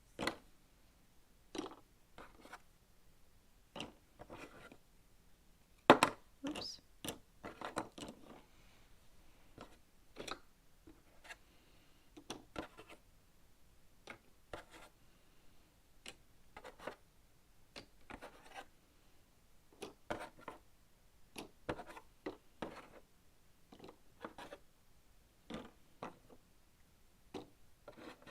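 Ravensburger cardboard jigsaw puzzle pieces being picked up, slid and set into place on a smooth table: irregular light clicks and scrapes, one or two a second. A sharper knock about six seconds in is the loudest.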